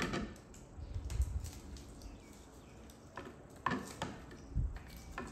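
Kitchen work noises: irregular light clicks and knocks of utensils and dishes being handled, with a couple of soft low thuds.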